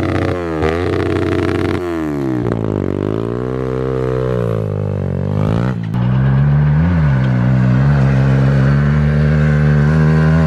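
Kawasaki KLX110 pit bike's single-cylinder four-stroke engine running through a cut-down Pro Circuit full-size exhaust. It is blipped a few times, then revs up and back down in one long sweep. Near the middle it is held at a steady high rev.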